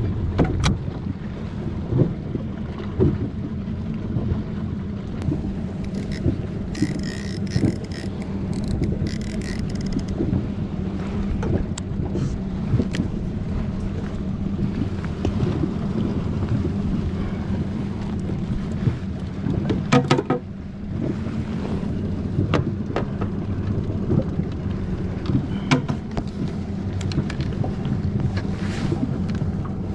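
Inflatable fishing boat's engine running with a steady low hum, with scattered knocks and clicks from gear handled aboard, loudest about twenty seconds in.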